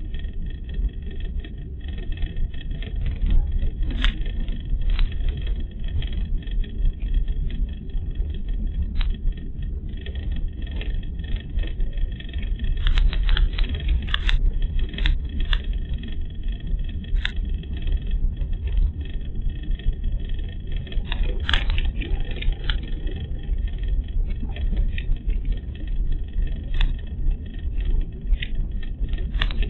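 Car driving on a narrow country road, heard from inside the cabin: a steady low road and engine rumble, with scattered sharp clicks and knocks, several close together around the middle.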